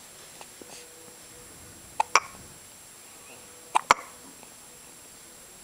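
Three-day-old newborn baby hiccupping: two short, sharp hiccups, about two seconds in and again nearly two seconds later, each a quick double catch.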